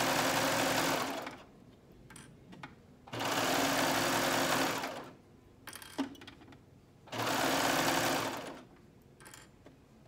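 Serger (overlock machine) stitching and trimming a knit T-shirt side seam in three stop-start runs of one to two seconds each, with short pauses between. A few small clicks fall in the pauses.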